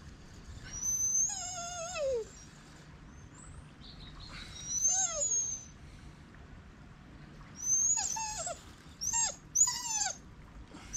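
Dog whining: high-pitched wavering whimpers, one long falling whine about a second in, another near the middle, then a quick run of about four short whines near the end.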